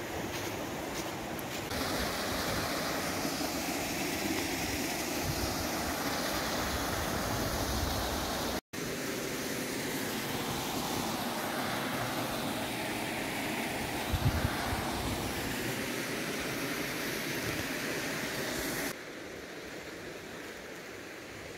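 Steady rush of a rocky mountain stream's flowing water, with a brief low thump about two-thirds of the way through.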